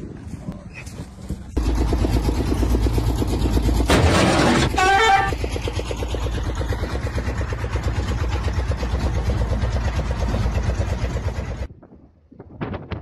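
A two-wheel walking tractor's single-cylinder engine chugging loudly at a steady, rapid beat. About four seconds in there is a short loud burst, then a brief horn blast. The engine sound cuts off abruptly near the end.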